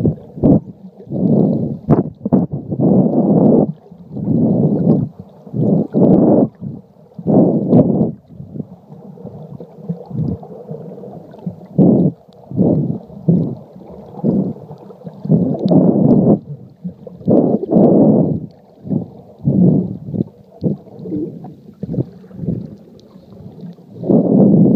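Muffled underwater sloshing and rushing of water, heard through a waterproof phone case moving through shallow seawater. It comes in irregular surges about once a second, with a quieter stretch of a few seconds in the middle.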